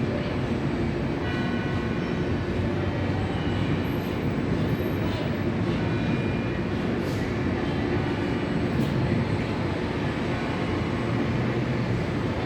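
San Fernando Cathedral's tower bells pealing continuously, with ringing overtones that come and go over a steady background rush.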